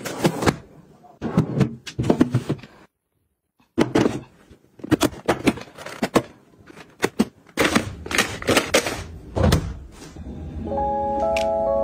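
Plastic snack bags and cardboard ice-cream boxes being packed into a refrigerator's plastic freezer drawer, as a run of knocks and rustles. A heavy thunk sounds as the drawer is pushed shut, and soft background music starts near the end.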